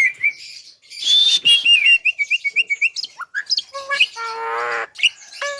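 Javan myna (jalak kebo) singing loudly: a quick run of short whistled chirps, then scattered calls and a harsh buzzy rattle lasting about a second near the end.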